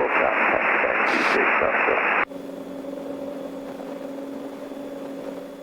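Aircraft radio hiss in the headset cuts off abruptly a little over two seconds in. What remains is the light plane's engine droning steadily at a lower level, with an even hum.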